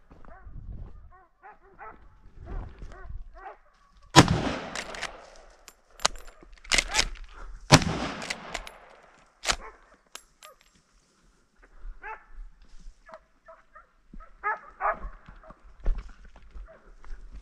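Hunting dogs barking and baying during a wild boar drive, broken from about four seconds in by a string of around six gunshots over some five seconds. Each shot echoes, and the first is the loudest. The dogs bark again near the end.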